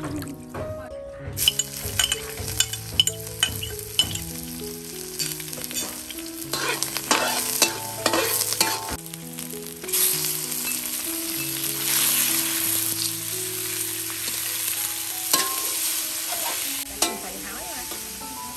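Chopped garlic and green onion sizzling in hot oil in a steel wok. The sizzle starts suddenly about a second and a half in, while a metal spatula scrapes and clicks against the wok as it is stirred.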